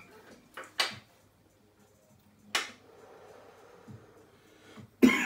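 A man breathing out after a hit from a glass dab rig: two sharp breaths near the start, a long hissing exhale about two and a half seconds in, then a harsh cough breaking out near the end.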